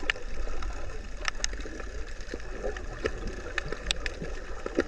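Underwater ambience: a steady low rumble of moving seawater with scattered sharp clicks and crackles.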